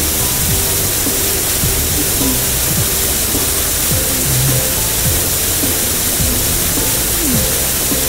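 Steady loud hiss of a cartoon water-spray sound effect from car-wash jets, over cheerful background music with short downward-sliding tones.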